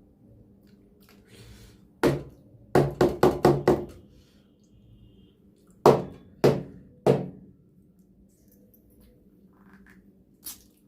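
Hard knocks of something rapped against a plate, each with a short ring: one knock, then a quick run of five, then three about half a second apart, and a fainter tap near the end.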